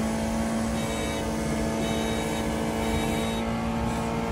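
Small scooter engine running steadily at cruising speed alongside, a constant drone heard over the road and wind noise of the moving car it is recorded from.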